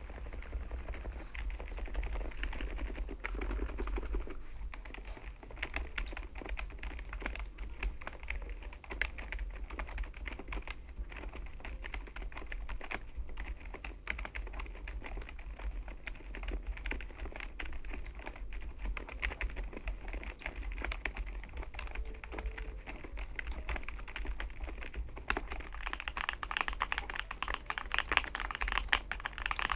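Continuous fast typing on a Chosfox x masro Fox65 gasket-mount mechanical keyboard: a dense patter of keystrokes that turns louder and sharper in the last few seconds.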